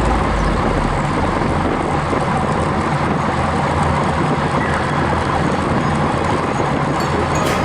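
Strong wind buffeting the microphone of a road bicycle moving at speed into a headwind, a steady rushing rumble, with a few light clicks near the end.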